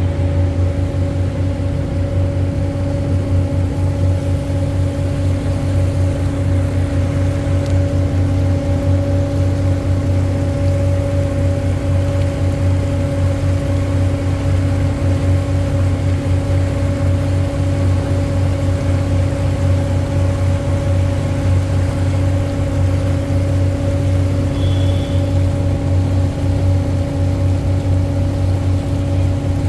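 River cruise boat's engine running at a steady pace, a constant low hum with steady higher tones above it that never change in pitch.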